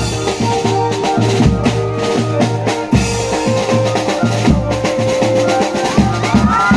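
Music with a steady drum-kit beat and heavy bass hits about every second and a half, over held notes.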